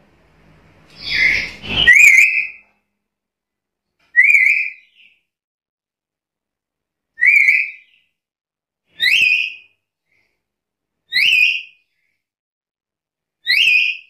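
Black-capped lory calling: a harsh squawk about a second in, then six short, clear calls that each rise sharply in pitch, repeated every two to three seconds.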